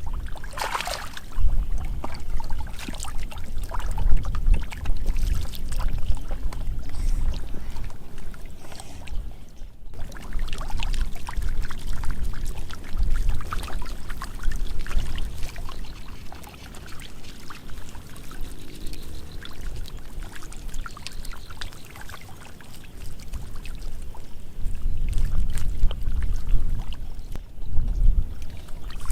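Shallow paddy-field water splashing and sloshing irregularly as fish are caught by hand, with many small clicks and splashes and low rumbles that come and go.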